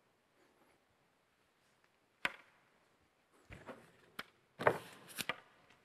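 A few sharp taps and knocks in a quiet room: a single one about two seconds in, then a quick cluster of them near the end, the loudest about four and a half seconds in.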